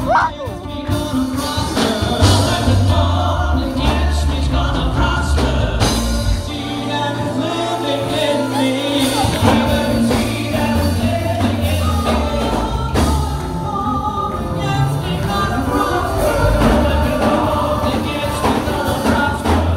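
Live worship music played through a church PA: singing over a band with a prominent bass line.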